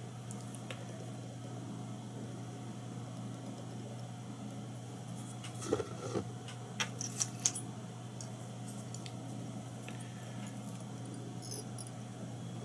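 Small fly-tying tools being handled at the vise: a short run of light clicks and rattles about halfway through and a few faint ticks near the end, over a steady low electrical hum.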